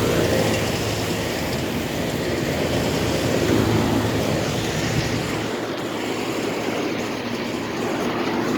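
Outdoor air-conditioner condenser units running: a steady fan whoosh with a low hum underneath, and the hum drops away about five and a half seconds in.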